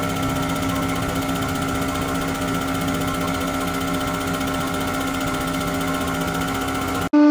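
Hydraulic press's pump and motor running with a steady drone as the ram presses down; it cuts off suddenly near the end.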